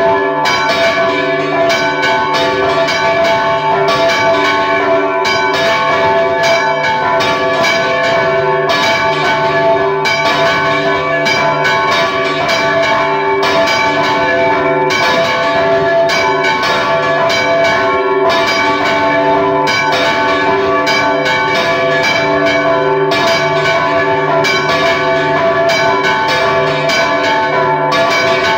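Several church bells rung by hand in a festive repique, struck rapidly over and over so their tones ring together without a break. Loud and close, from inside the belfry among the bells.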